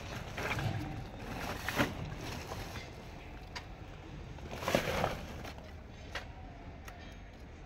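Jute sacks rustling as they are handled and lifted, in several short noisy bursts, the loudest about five seconds in, with a few sharp clicks, over a steady low background hum.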